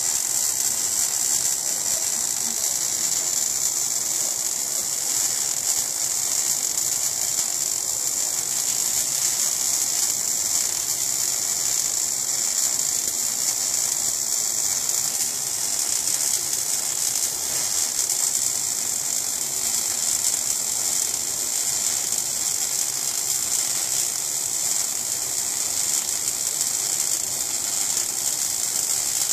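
MAG (gas metal arc) welding arc crackling and sizzling steadily without a break, with spatter, as a vertical-up fillet weld is laid.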